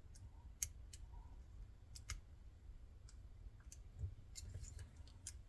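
Faint, scattered metallic clicks of a lock pick working the pins of a Weiser pin-tumbler lock under tension, a few in quick succession near the end.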